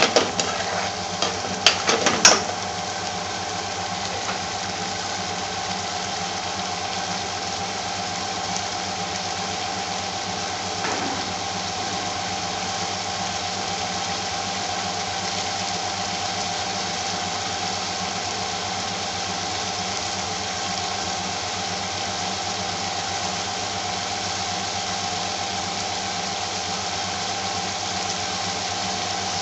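Curry simmering and bubbling in an aluminium pan on a gas stove, under a steady mechanical hum. A spoon clicks and scrapes against the pan in the first couple of seconds, then only the steady bubbling and hum remain.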